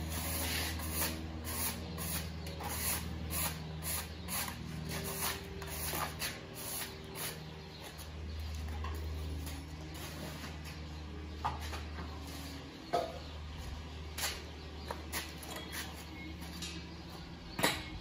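Irregular scraping and brushing strokes with scattered clicks and knocks of hands working, over a steady low hum. A few sharper knocks stand out, one near the end the loudest.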